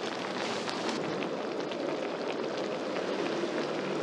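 A pot of spicy octopus soup at the boil, bubbling steadily with many small scattered pops.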